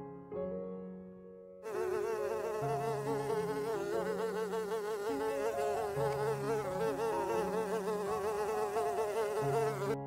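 Many honeybees buzzing together: a dense, wavering drone that starts about two seconds in, over soft background music with held notes.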